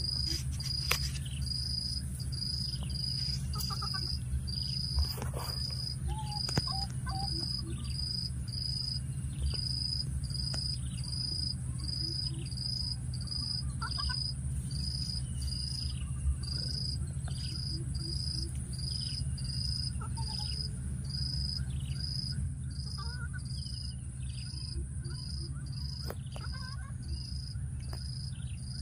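Outdoor insect and bird ambience: a short high chirp repeated quickly and evenly throughout, over a continuous higher-pitched insect drone and a steady low rumble, with a few scattered clicks.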